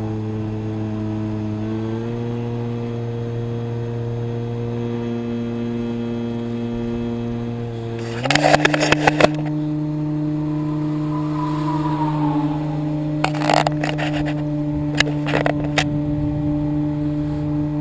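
Electric motor and propeller of an RC plane running steadily, heard from a camera mounted on the plane. Its hum steps up in pitch about two seconds in and again about eight seconds in. Bursts of rattling clatter come around eight to nine seconds and again in the last few seconds.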